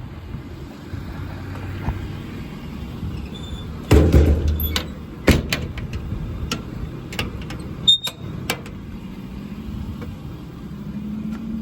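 A truck door and its latch being handled: a heavy thump about four seconds in, a sharp knock a second later and a click near eight seconds, with scattered smaller clicks over a steady low hum.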